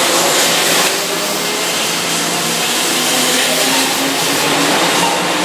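Keihan electric commuter train running alongside the platform: a steady rumble of wheels and running gear, with a faint motor tone that rises in pitch in the middle of the stretch.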